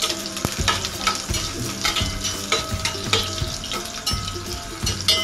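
Garlic and onion sizzling in oil in a stainless steel pan while a metal spatula stirs them, scraping and clinking against the pan again and again. The garlic and onion are being toasted a little for flavour.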